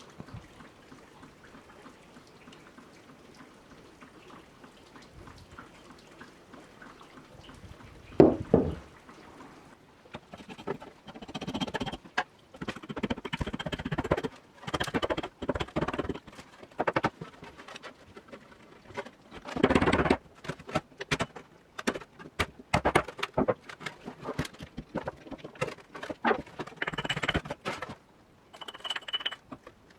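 A rusty iron pick-hoe being handled and worked on a workbench. There is a single loud knock about eight seconds in, then irregular strokes of scraping and clicking.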